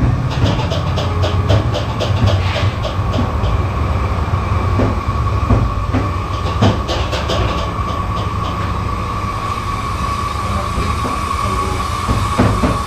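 Gas-fired vertical shawarma grill running, a steady low hum with a high whine, with irregular clicks and clatter through the first nine seconds or so.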